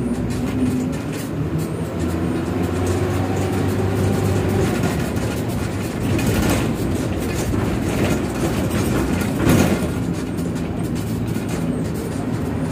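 Bus engine running steadily under way, with the body rattling, its pitch drifting up a little a few seconds in; two louder knocks come about six and a half and nine and a half seconds in.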